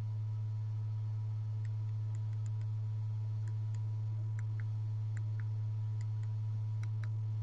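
Steady low hum of a running YG300 LED mini projector, with a dozen or so small, light clicks scattered irregularly from about a second and a half in: remote-control buttons being pressed to navigate the projector's on-screen menus.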